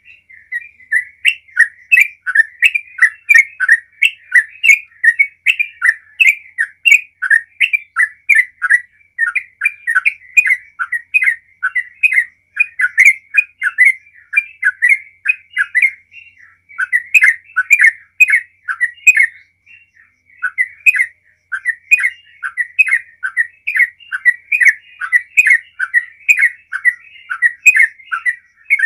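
Yellow-vented bulbul singing a long, unbroken run of quick whistled notes, about three to four a second, with two short breaks past the middle. This is the long 'ropel' song that bird keepers prize.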